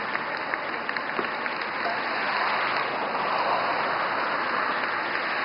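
Roadside spectators applauding runners: a steady clatter of hand claps, with a few separate claps standing out in the first second or so.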